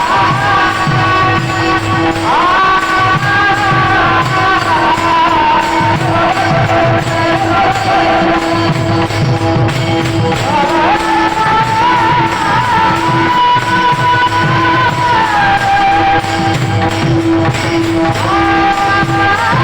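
Marathi devotional kirtan singing: long held notes that glide from pitch to pitch, over a steady drone, with drum beats and small hand cymbals keeping a steady rhythm.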